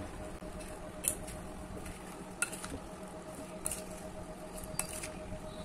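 A white spoon stirring chopped raw mango in oily spice masala in a glass bowl: soft squishing, with a few scattered light clicks as the spoon knocks the glass.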